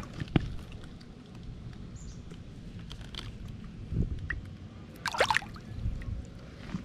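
Water splashing and trickling as a bass is lowered into the water by hand and released beside an inflatable paddleboard. Light knocks, and a short squeak with a thump about five seconds in.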